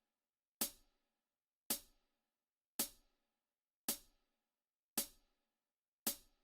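Background music intro: a single sharp percussion hit, like a hi-hat or cymbal, repeating about once a second, six times, with silence between.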